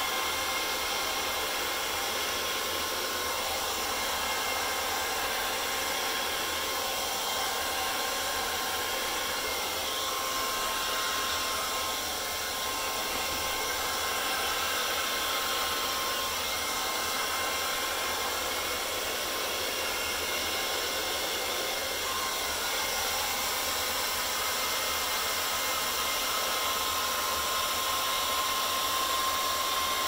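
Handheld hair dryer running steadily, an even rush of air with a thin whine in it, blowing wet acrylic paint across a canvas in a fluid pour.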